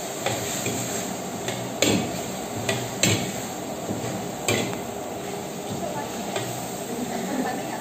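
Long-handled metal ladle stirring and scraping meat around a wok, with a few sharp metallic clanks of the ladle against the pan over a steady hiss of frying.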